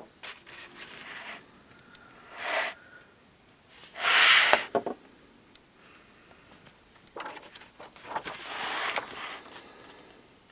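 Coloring book pages being turned by hand: a few paper swishes and rustles, the loudest about four seconds in.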